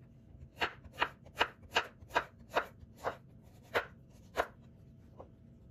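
Kitchen knife slicing a zucchini into rounds on a wooden cutting board: about nine sharp cuts, two to three a second, then one faint last cut.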